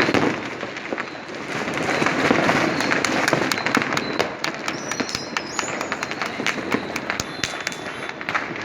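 Fireworks and firecrackers going off continuously, a dense crackle of many sharp bangs, with a brief high whistle about five seconds in.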